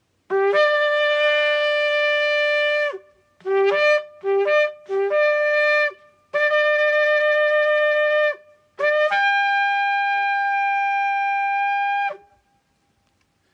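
A long spiral ram's-horn-type shofar blown in a call: a long blast, three short blasts, another long blast, and a last long blast that jumps up to a higher note and is held for about three seconds. Each blast starts on a low note and breaks up into its main note.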